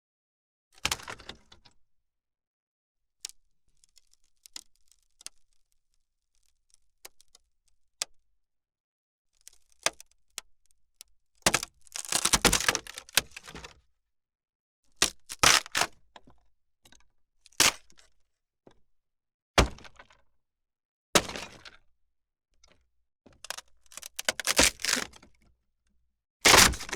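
Wood cracking and snapping in irregular sharp cracks and short crackling bursts, with near silence between them; the longest crackling run comes about halfway through.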